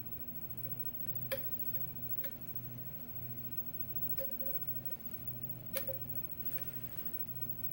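Lock pick working the pins of a five-pin Schlage-style lock: several sharp, light clicks at uneven intervals over a low steady hum.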